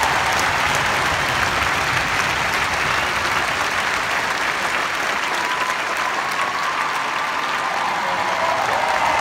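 Large arena concert crowd applauding steadily.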